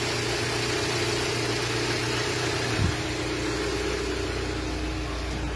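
Renault Symbol 1.2 16V four-cylinder petrol engine idling steadily from cold after four hours switched off. It runs smoothly, which is taken as the cure for its cold-idle vibration after a change to the right grade of oil.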